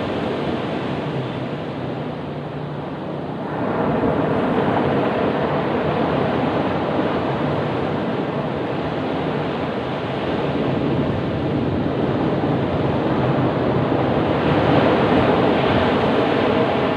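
Ocean surf rumbling steadily on a beach. A wave breaks and surges louder about three and a half seconds in, and another swells up near the end.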